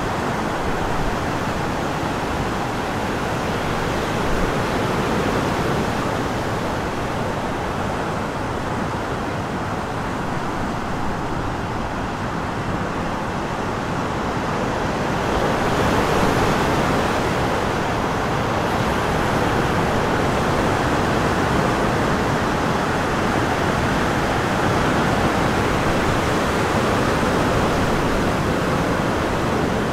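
Steady rush of surf breaking along the shore, mixed with wind. It grows a little louder and brighter about halfway through.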